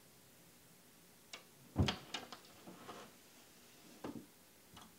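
A hand and face pressed against window glass, bumping and rubbing on the pane: a thump a little under two seconds in among a few short knocks, then two more short knocks near the end.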